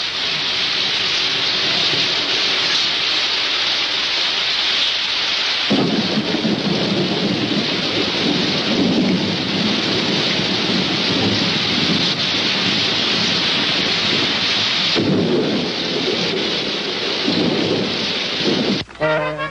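Steady heavy rain with low rolling thunder that comes in about six seconds in and swells again later. The rain and thunder cut off suddenly near the end.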